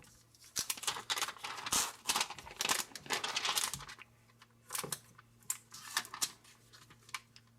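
Protective plastic film being peeled and handled off a new Nexus 7 tablet, crinkling in dense bursts for the first few seconds, then only a few scattered rustles and light taps.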